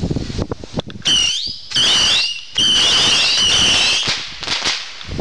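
Whistling firework rockets going off: three loud, high, wavering whistles in quick succession, starting about a second in, the last one the longest.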